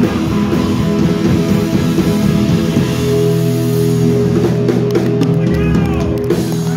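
Live rock band playing electric guitars, bass guitar and drum kit. About three seconds in, the band moves from busy playing into a long held closing chord, with cymbal crashes and drum hits over it.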